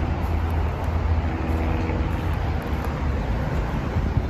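Steady low rumble of background road traffic, with no distinct events.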